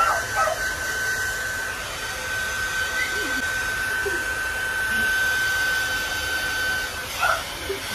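Handheld hair dryer running steadily while drying a puppy's coat: an even rush of blown air with a steady high whine.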